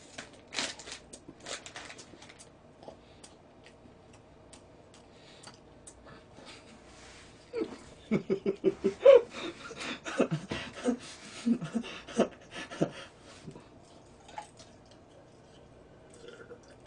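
A man laughing with his mouth full of burger, in quick breathy pulses several times a second, starting about eight seconds in and lasting several seconds. Before it come faint crackling chewing and eating noises.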